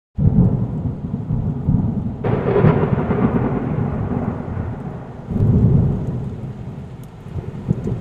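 Rolling thunder with rain. A deep rumble starts suddenly, a sharper crack comes about two seconds in, and another swell of rumble follows past the five-second mark before it slowly fades.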